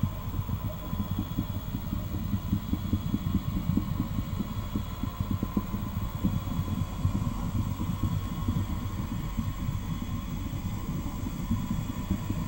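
A continuous low rumble that flickers and buffets irregularly, with a faint steady high tone above it.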